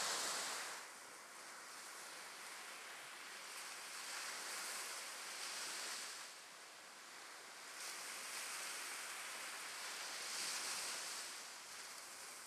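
Sea surf breaking and washing up the shore, the rush of water swelling and easing every few seconds.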